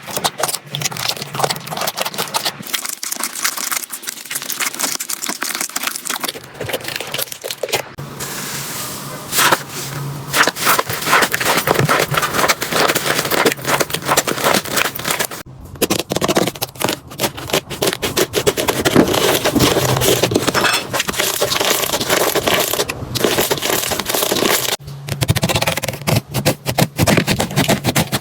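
Slime being squeezed and worked by hand, making a dense run of crackling, popping clicks, with a few brief breaks where one clip gives way to the next.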